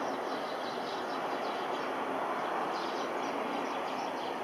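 Distant, steady rumble of a Boeing KC-767 tanker's twin turbofan engines as it flies on approach with its landing gear down. Short high chirps come and go over it.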